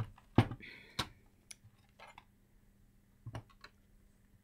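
Scattered sharp clicks and knocks from handling meter probes, leads and equipment on a workbench. The loudest knock comes about half a second in with a short rustle after it, and a couple more clicks follow around three and a half seconds in.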